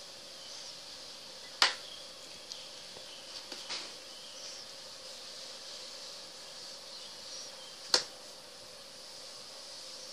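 Two sharp clicks about six seconds apart, with a few fainter ticks between them, over a steady hiss and low hum.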